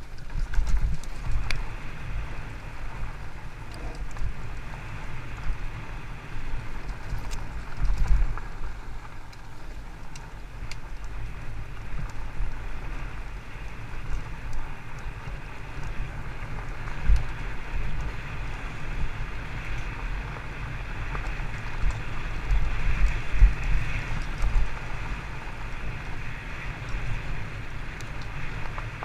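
Fat-tyre mountain bike rolling fast down a dirt forest trail, with a steady rumble of wind on the microphone and tyres on dirt and rattle from the bike. Heavier thumps over bumps stand out about a second in, at about eight seconds, near seventeen seconds and a few times a little past twenty-two seconds.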